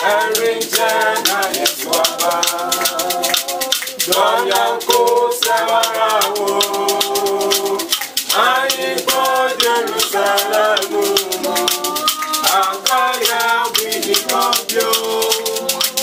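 A small group of voices singing phrase by phrase, accompanied by a beaded gourd rattle (shekere) shaken in a steady, fast rhythm.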